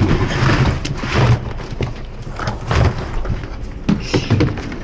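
Hard-shell rolling suitcases being shoved and slid into a bus's underfloor luggage compartment: scraping across the metal-ribbed floor, with several heavy thuds as the cases knock against the floor and each other.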